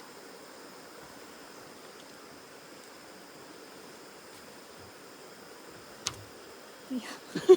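Steady faint hiss of background noise, broken by a single sharp click about six seconds in; a person's voice starts just before the end.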